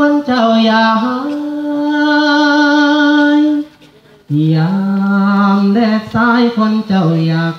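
Buddhist chanting: a voice intoning a Pali/Thai chant in long held, sung notes, with a short pause about halfway and the chant resuming on lower notes.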